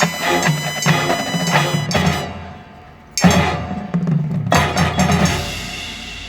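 High school marching band playing: brass-and-drum accented hits, a brief lull, then two big full-band hits about a second and a half apart. The last one rings and fades out as the closing chord of a movement.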